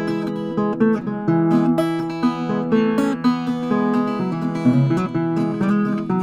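Background music: an acoustic guitar strummed and picked, a steady flow of chords and notes.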